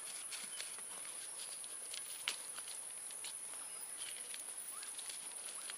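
A steady high-pitched drone of insects, with faint scattered clicks and rustles from hands rubbing spice paste over a skinned rabbit on a banana leaf; one tick about two seconds in stands out a little.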